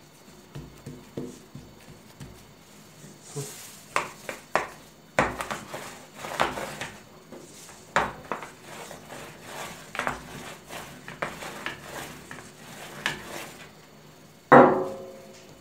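Wooden rolling pin rolling and pressing date paste in a metal baking tray, giving irregular knocks and clatters against the tray. Near the end comes one louder metallic knock that rings briefly.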